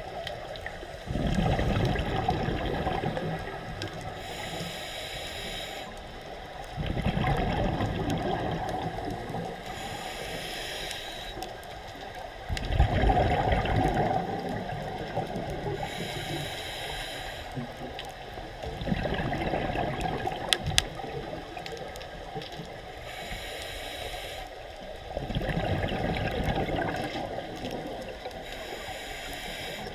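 A scuba diver breathing through a regulator underwater. Each breath is a hissing inhale followed by a longer, louder burst of exhaled bubbles, in a slow cycle of about five breaths.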